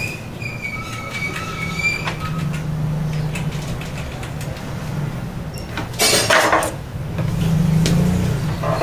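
A low, steady mechanical drone that swells twice, under light knocks and handling sounds of dough being cut with a knife and worked by hand on a wooden board, with one louder scrape about six seconds in.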